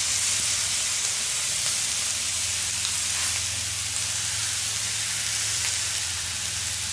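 Meat and vegetable skewers sizzling steadily on a hot grill fire plate.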